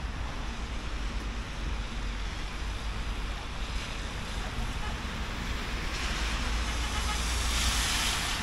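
Wet city street in the rain: a steady hiss of rain and traffic over a low rumble. Over the last couple of seconds a vehicle's tyres hiss past on the wet road, swelling and then dropping away.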